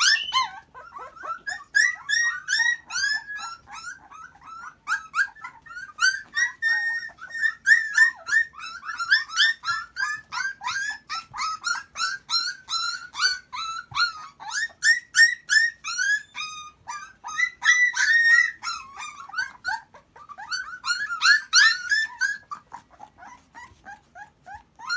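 A litter of hungry Akita puppies whining and yelping, many short high-pitched cries overlapping one another, with a brief lull about twenty seconds in.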